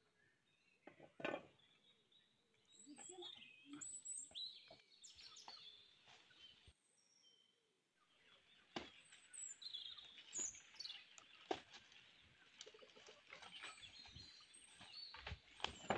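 Faint bird chirps with scattered knocks and rustles. From about halfway, more continuous rustling of banana leaves and undergrowth as someone moves among the plants and handles a leaf.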